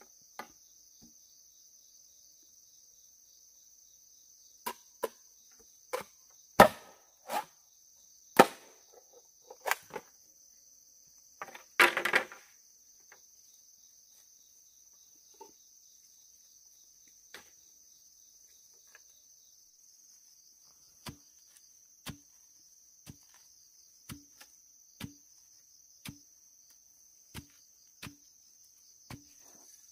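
Chopping on wood: an irregular run of sharp blows in the first half, with a short crackling burst about twelve seconds in, then about one blow a second near the end. A steady high insect drone runs underneath.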